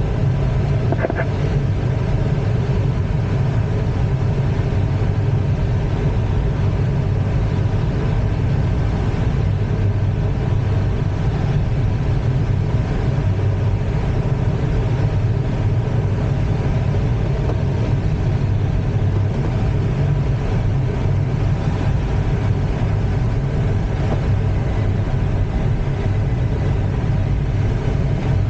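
Steady airflow noise in the cockpit of an ASK-21 glider flying free after release from the tow rope. It is a loud, even rush that does not change.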